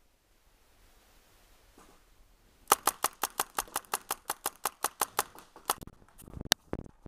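A paintball marker firing a fast string of about twenty shots, roughly six or seven a second, for about three seconds. Then rumbling handling noise and one more sharp crack near the end.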